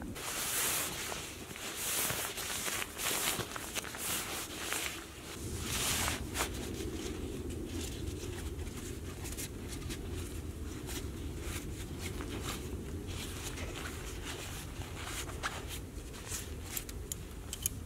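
Nylon sleeping bag being stuffed into its stuff sack by hand: irregular rustling and crumpling of the fabric, busiest in the first few seconds. A steady low rumble runs under it from about five seconds in.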